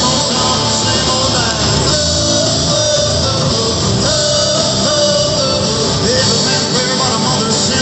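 Live country-rock band playing loud and without a break: drums, electric and acoustic guitars and a bowed fiddle, with singing over them. Heard from the crowd on a phone.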